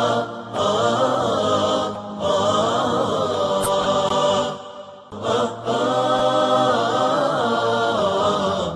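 Wordless vocal chorus singing nasheed-style 'ahat', long sustained 'aah' tones that slide gently in pitch, in phrases with short breaths about half a second, two seconds and five seconds in.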